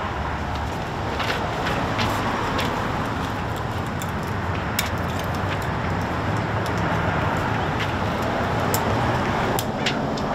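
Steady hum of road traffic, with scattered small clicks and rustles from tape and paper being handled against a glass door.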